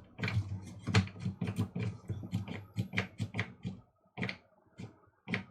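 Quick, irregular plastic clicks and taps from a small coffee grinder's push-down lid switch being pressed over and over, with no motor sound: the grinder stays dead.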